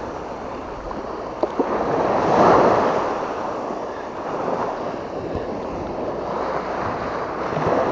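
Surf washing onto the beach, swelling about two and a half seconds in, with wind buffeting the microphone. Two short clicks come about a second and a half in.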